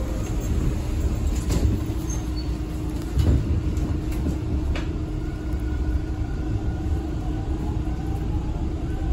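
Interior of a Toronto subway car standing at a station: a steady low rumble and hum from the train, with a knock about three seconds in as the doors close. A faint rising motor whine comes near the end as the train starts to move off.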